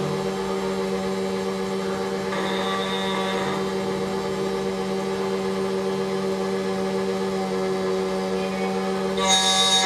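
SEC-E9 key cutting machine running steadily with a constant pitched hum while its cutter machines a Toyota TOY43 key blank. A louder, brighter sound comes in near the end.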